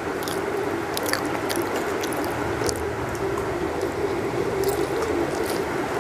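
Eating by hand: fingers mixing rice and curry on a steel plate, then chewing, with small scattered clicks and squishes, over a steady hum.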